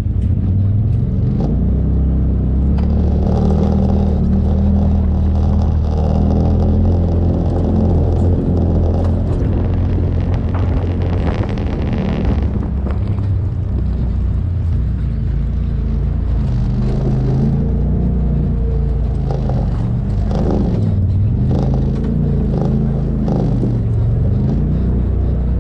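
Off-road side-by-side UTV engine running as it drives over a rough dirt trail, its pitch rising and falling with the throttle, with short knocks and rattles from the bumpy ground.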